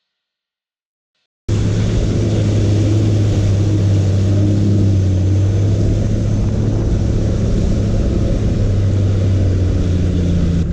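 Toyota Land Cruiser engine running under load while driving, a steady low drone that cuts in suddenly about a second and a half in after near silence.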